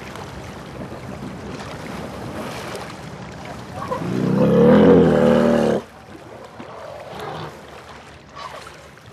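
Water trickling and splashing in a pool where elephants are wading. About four seconds in, a loud, low-pitched call with a growling edge sounds for about two seconds and then cuts off.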